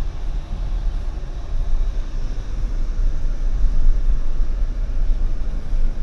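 GWM Cannon ute's four-cylinder turbo-diesel engine and tyres giving a steady low rumble, heard from inside the cab as it drives slowly down the track to the beach.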